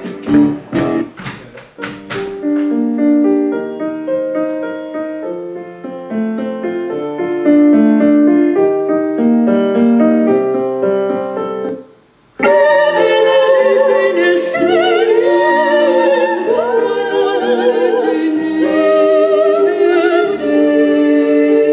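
Music: piano playing a melody, then after a short break about halfway through, a singer with strong vibrato over piano accompaniment.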